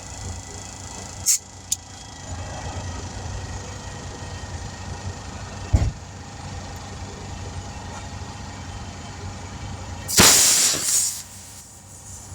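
Air hissing out of a tire's valve stem: two brief spurts early on and a loud hiss of about a second near the end, the air lost while the valve is worked. A thump comes about midway, over a steady low engine rumble.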